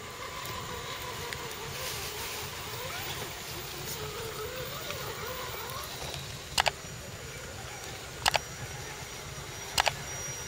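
Radio-controlled scale truck's small electric motor whining, its pitch rising and falling with the throttle. Three sharp double clicks come in the second half.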